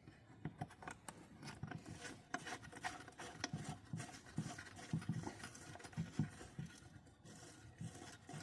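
Light, irregular clicks, taps and scrapes of small metal engine parts being handled and fitted by hand: a spring and ball bearing going back into a small engine's crankcase.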